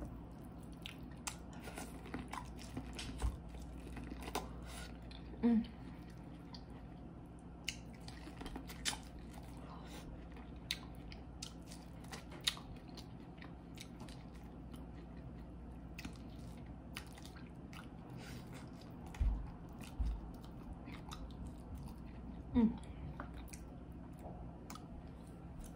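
Close-miked chewing and lip-smacking while eating seafood boil: scattered wet smacks and small clicks, with a few louder low knocks.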